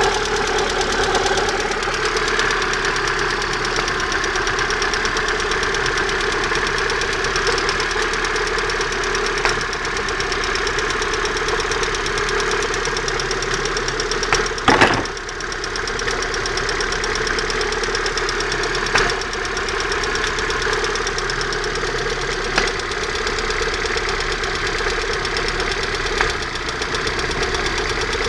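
Car engine running steadily with a fast, repeating knock from around the exhaust manifold, a sign of a fault that the owner cannot yet place. A few louder single thumps stand out, the strongest about halfway through.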